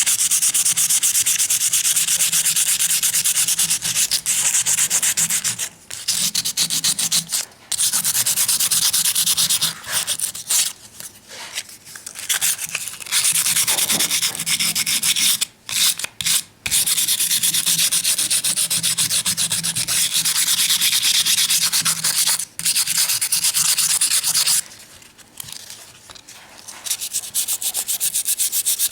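120-grit sandpaper rubbed rapidly back and forth over a coated micarta knife handle, scuffing the slick coating to a matte, grippier finish. The scraping stops briefly several times, with the longest pause near the end.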